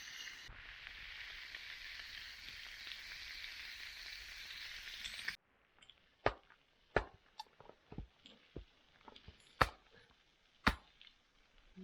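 A mackerel kipper frying, with a steady sizzle that stops abruptly about five seconds in. After that come a handful of separate sharp clicks and knocks.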